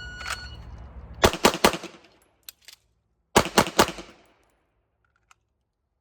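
A shot timer beeps, then a handgun fires three quick shots. After two faint clicks of a slide-lock reload, it fires three more quick shots, each string lasting about half a second.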